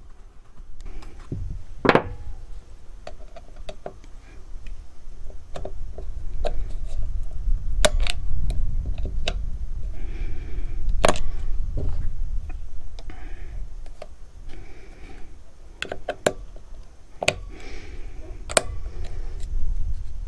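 A screwdriver and metal parts clicking and knocking against the chainsaw's housing as screws are worked loose, in scattered sharp taps, the loudest about two seconds in. A low rumble runs underneath.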